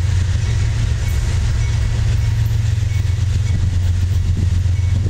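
CSX ES40DC diesel-electric locomotive's GEVO-12 engine running under power, a steady low drone as it pulls a freight train out of a siding.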